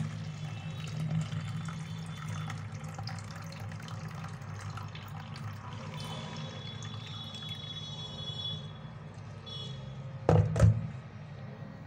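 Cooking water from boiled chickpeas poured off from a tipped steel pot into a plastic bowl: a steady trickling pour with splashing. Near the end there is a brief louder knock as the pot of chickpeas is moved.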